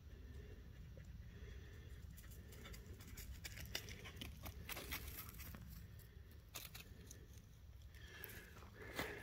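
Footsteps crunching irregularly on the ground, over a low steady rumble.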